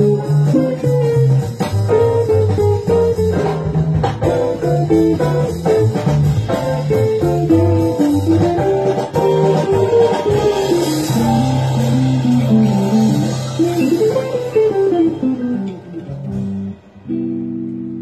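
Solo guitar playing a melody over low bass notes, with some notes sliding up and down about two-thirds of the way through. It ends on a held chord that rings out and fades near the end.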